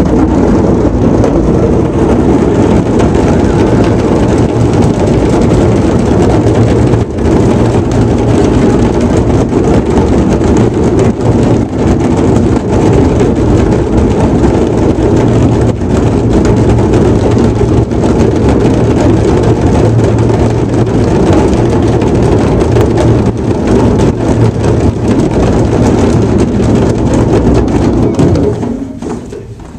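Ensemble of djembe hand drums played together, a loud, dense, continuous drumming that starts abruptly and dies away near the end.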